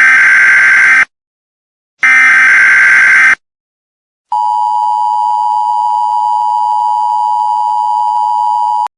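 Emergency Alert System SAME header data bursts: one ends about a second in, and a second about one and a half seconds long follows at about two seconds. These carry the coded alert information. About a second later the steady two-tone EAS attention signal starts, holds for about four and a half seconds, then cuts off abruptly. It signals that an emergency voice message is about to follow.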